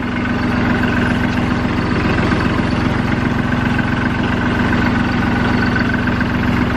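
Branson 2400H compact tractor's diesel engine running steadily.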